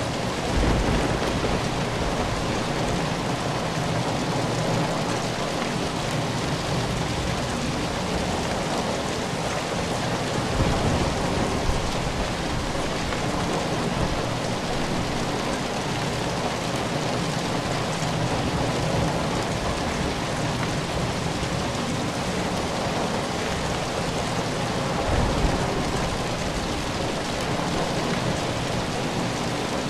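Steady rain falling, an even hiss of drops, with brief low rumbles of thunder about a second in, around eleven seconds and again around twenty-five seconds.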